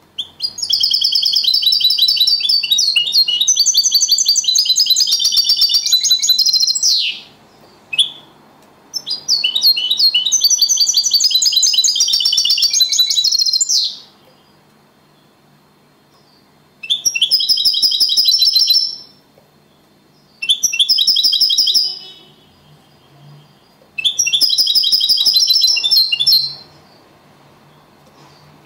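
European goldfinch singing a clean song in the Spanish Copia Málaga style: rapid twittering phrases, two long ones of about six seconds each, then three short ones of about two seconds, with brief pauses between.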